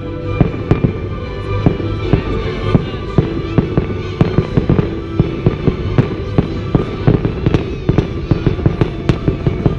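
Aerial fireworks shells bursting in a rapid barrage, several sharp bangs a second, with music playing underneath.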